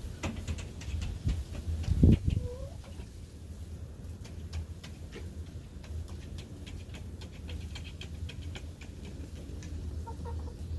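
Chickens giving a few brief soft clucks amid many small sharp ticks and taps, with one loud dull thump about two seconds in, over a steady low rumble.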